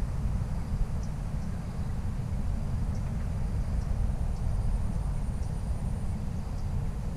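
Steady low rumble of wind buffeting the microphone, with faint high ticks now and then and a thin high whine in the middle.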